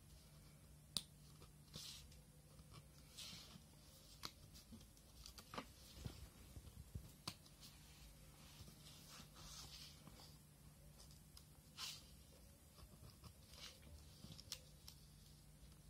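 Precision craft knife cutting through paper: faint, scattered scratchy strokes and light ticks as the blade drags along and pops through the sheet, the sharpest one about a second in. A steady low hum sits underneath.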